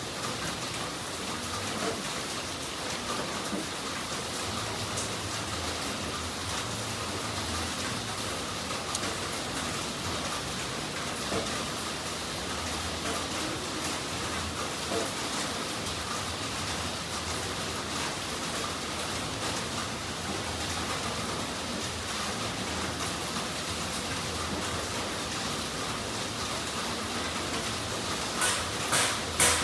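Steady, even hiss. Near the end a run of sharp rhythmic taps comes in, about two a second.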